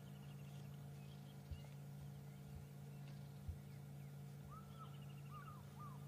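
Distant African fish eagle calling: a short run of yelping notes about four and a half seconds in, with faint high bird trills and a steady low hum underneath.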